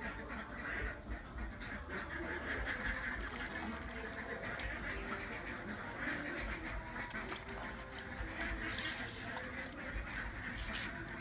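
Ducks quacking continuously in the background.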